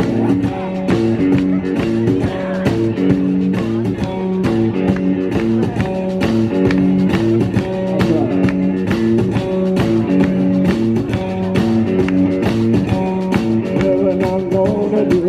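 Rock-style music with guitar and a steady beat.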